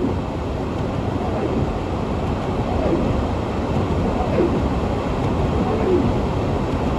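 Steady low rumble inside a moving car's cabin: engine and tyres running on a snowy road.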